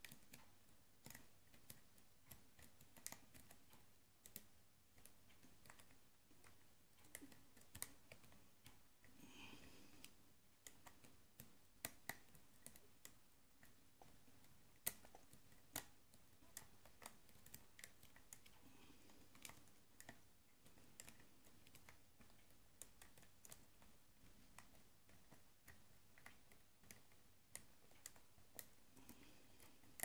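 Faint, irregular clicking and scraping of a lock pick working the pin stack of an American brass padlock under a tension wrench, with the serrated key pins crunching as they are lifted. A few clicks stand out louder than the rest.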